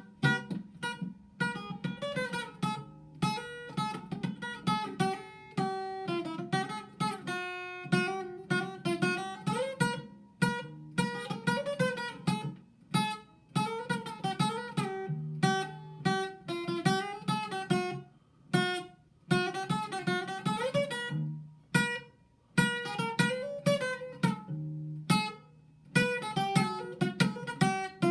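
Acoustic guitar playing: plucked and strummed notes with some bent pitches, in a loose repeating pattern.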